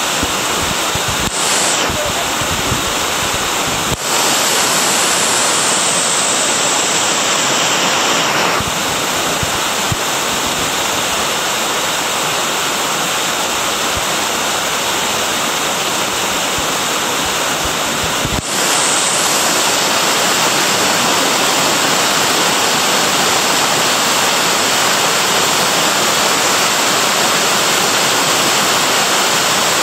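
A waterfall's falling water making a loud, steady rush of noise, which dips briefly twice, about 4 and 18 seconds in.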